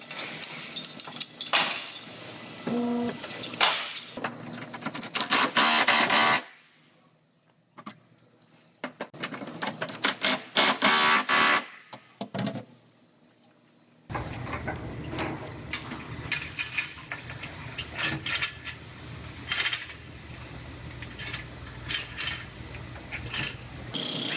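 Body-shop pulling work on a crashed car's rear panel: irregular metal clanks and chain rattles in short bursts, with a near-silent stretch about seven seconds in, then a steady machine hum with scattered clicks through the second half.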